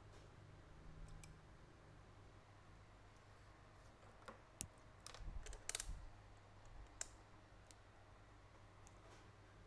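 A few small sharp clicks and taps, bunched together about halfway through, over a faint steady low hum.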